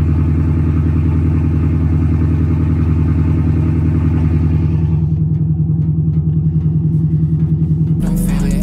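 2024 Ford Mustang GT's V8 idling with a steady, even, pulsing rhythm. Music cuts in near the end.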